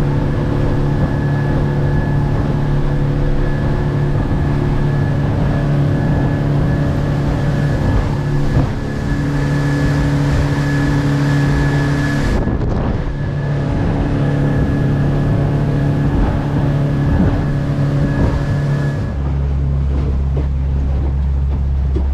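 Outboard motor of a small aluminium fishing boat running steadily under way, with a thin whine above the engine note. The sound changes abruptly twice, about 12 and 19 seconds in, ending on a deeper low hum.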